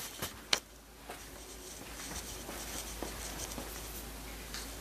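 Two light clicks about half a second apart at the start, then quiet kitchen room tone with a faint low steady hum.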